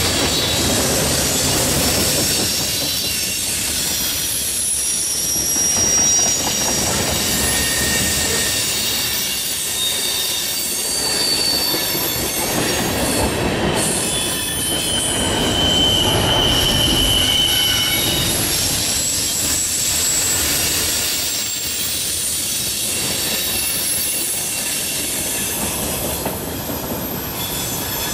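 Norfolk Southern mixed freight train's cars rolling past: a steady rumble and clatter of steel wheels on rail, with high-pitched wheel squeals coming and going, one held for a couple of seconds about halfway through. The sound eases a little near the end as the last cars go by.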